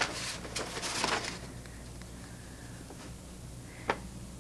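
Sheets of paper rustling as they are handled and unfolded, loudest in the first second, then dying away over a steady low hum. A single short tap near the end.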